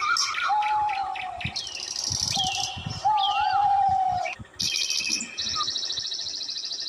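High chirping and squealing animal calls: short falling squeals, two held whistle-like notes, and near the end a rapid buzzy trill that cuts off suddenly.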